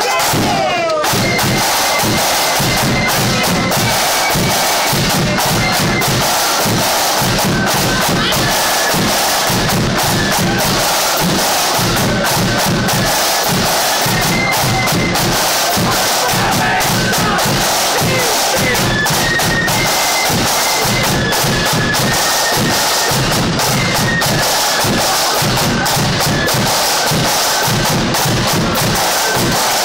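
Loyalist flute band playing a tune: a high flute melody over steady snare and bass drum beats.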